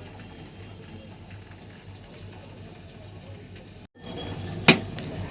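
Milk sweetened with date palm jaggery simmering gently in a pan, a faint bubbling. The sound cuts out briefly near the end and is followed by a single sharp click.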